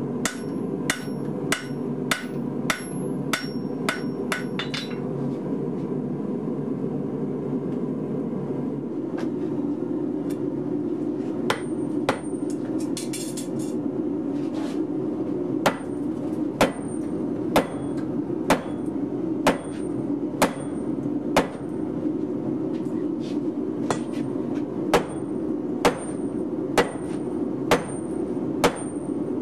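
Hand-hammer blows on hot steel, about two a second with a bright metallic ring for the first few seconds; after a gap, slower blows about one a second as a glowing bar is upset end-down in a swage block. A steady low rushing noise runs underneath.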